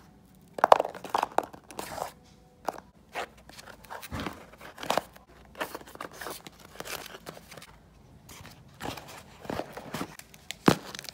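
Homemade squishies being set back into a cardboard bento box: irregular soft taps, rustles and scrapes against the box, with one sharper knock near the end.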